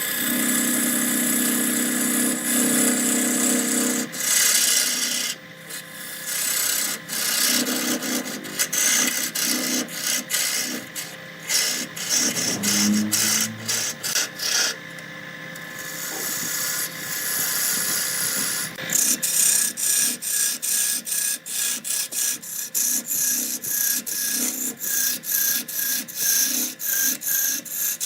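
A turning tool cutting wood spinning on a lathe, a rough scraping hiss. It breaks off and resumes many times, in quick short strokes from about two-thirds of the way in.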